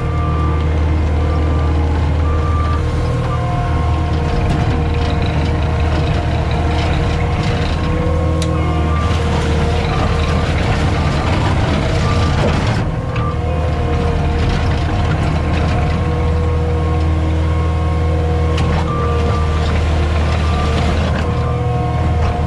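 CAT 259D skid steer's diesel engine running hard as it loads material, with a steady deep drone that swells in the middle. Its backup alarm beeps in short runs now and then as it reverses.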